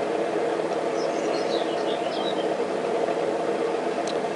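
Steady mechanical hum of a running machine, with a few faint high chirps a second or two in.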